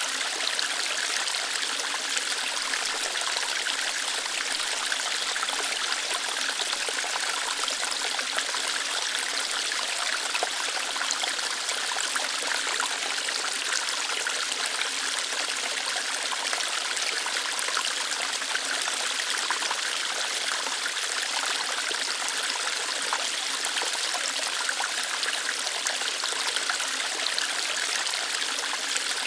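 Small waterfall, water running and trickling over rocks in a steady, even rush with fine splashing detail.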